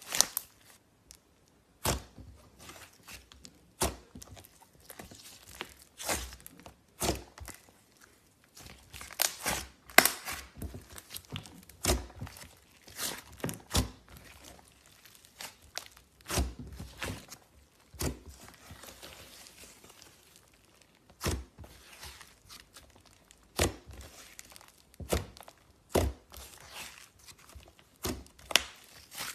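Slime being squeezed, poked and stretched by hand, giving sharp wet pops and crackles at irregular intervals, about one every second or so, some in quick clusters.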